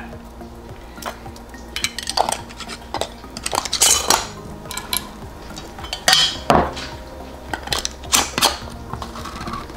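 Metal screw bands being twisted onto glass canning jars, with irregular clinks and short scrapes of metal on glass as the jars are handled.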